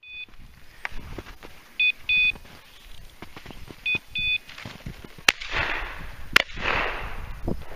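Dog's beeper collar sounding short double beeps about every two seconds, the point-mode signal that the dog is holding a bird. Then two shotgun shots about a second apart at a flushed pheasant, the loudest sounds here.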